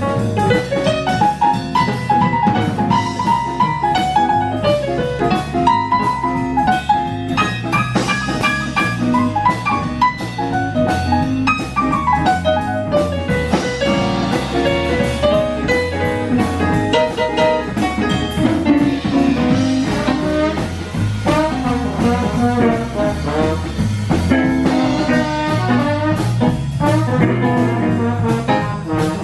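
Live blues jam band playing: electric keyboard, hollow-body electric guitar, saxophone and drum kit, with a horn line carrying the melody over a steady beat.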